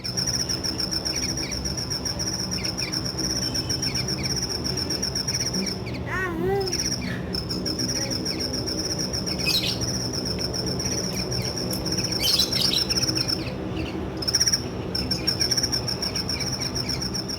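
Hummingbird calling: a high, thin, rapidly pulsing note held almost without a break, with short pauses about six and fourteen seconds in. About six seconds in, a lower arching call sounds briefly, over a low steady background hum.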